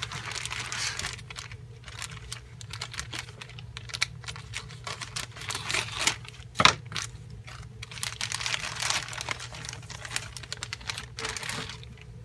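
Plastic wrapping crinkling and styrene parts sprues clicking and rattling as they are handled, with one sharper knock about six and a half seconds in.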